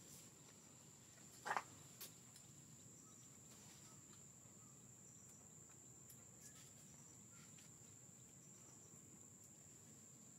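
Faint, steady, high-pitched drone of insects, with one brief louder sound about a second and a half in and a faint click just after.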